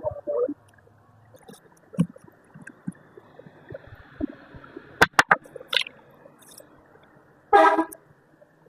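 Scattered clicks and knocks of small motorcycle parts being handled during cleaning, with a quick run of three sharp clicks about five seconds in and a short noisy burst near the end.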